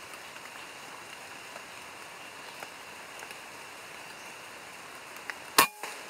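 Rain hissing and dripping steadily on the forest canopy, then near the end a single sharp PCP air rifle shot, followed at once by a fainter knock.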